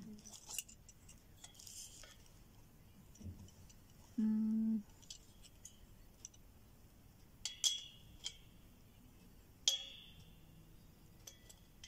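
Metal parts of a microphone desk-arm stand and its clamp being handled: scattered small clicks and clinks, with two sharper ringing clinks in the second half. About four seconds in, a short steady tone lasting about half a second is the loudest sound.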